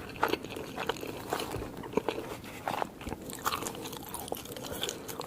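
A person chewing crunchy food up close to the microphone, eating-sounds style, with a steady run of short, crisp crunches.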